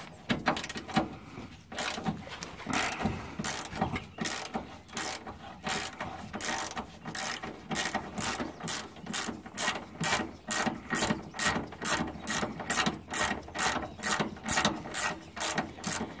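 Hand ratchet clicking as it undoes the nut on a rear shock absorber's upper mounting. Irregular clicks for the first few seconds, then a steady run of about three clicks a second.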